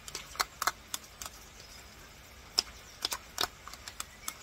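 A utensil clicking and scraping against a mayonnaise jar as the mayonnaise is scooped out into a bowl: about a dozen sharp, irregular clicks.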